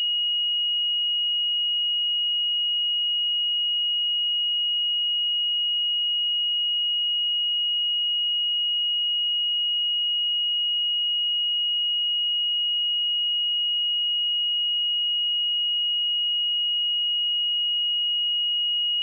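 A pure 2888 Hz sine test tone, one steady high-pitched note held unchanged at constant level.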